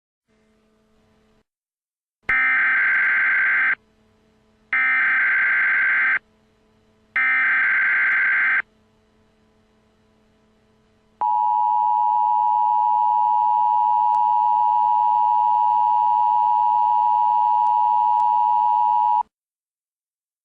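Emergency Alert System broadcast tones: three short modem-like bursts of the SAME digital header, each about a second and a half long. After a pause comes the steady two-tone EAS attention signal, held for about eight seconds before it cuts off.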